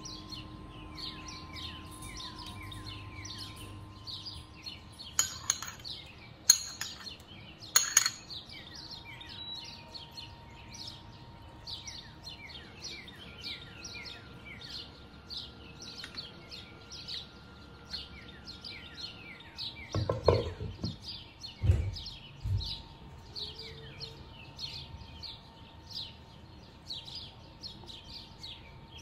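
Small birds chirping on and on in short, quick falling notes. Three sharp kitchenware clinks come between about five and eight seconds in, and a few duller knocks come about twenty seconds in.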